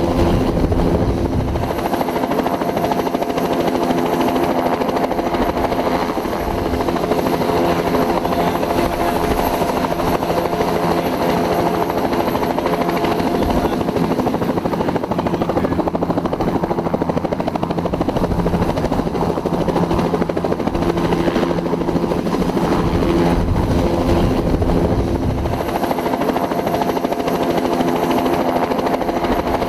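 Bell 206 helicopter running steadily: the whine of its turboshaft engine over the throb of its two-blade main rotor, with the low throb swelling briefly near the start and again near the end.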